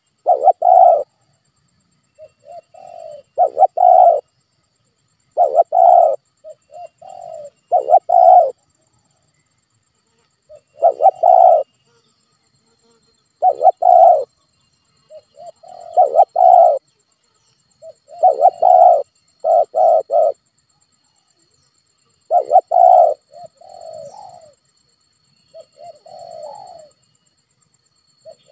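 Spotted dove cooing: repeated short phrases of low coos, a phrase every two to three seconds, with loud notes and softer notes between them.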